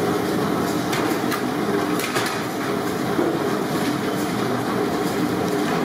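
Large kitchen burner roaring steadily under kadais of deep-frying oil, with scattered crackles from the frying.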